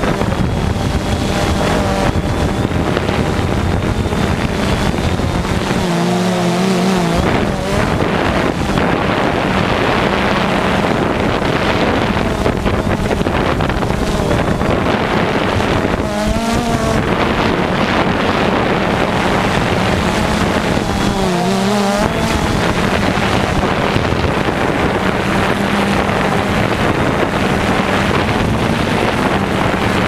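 DJI Phantom 2 quadcopter's electric motors and propellers running with a steady whine, picked up close by the camera on the drone, with wind buffeting the microphone. Three times the motor pitch briefly wavers and dips.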